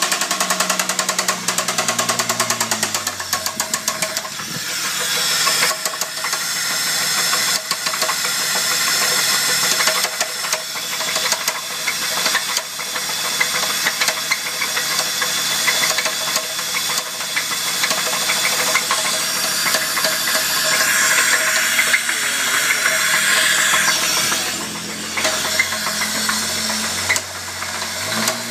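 Holden VS Commodore's 3.8-litre Ecotec V6 running with a rapid, steady knock from a failed big-end (connecting rod) bearing, which the owners suspect a weak oil pump starving it of oil helped cause. The revs drop back to idle in the first few seconds and climb again near the end.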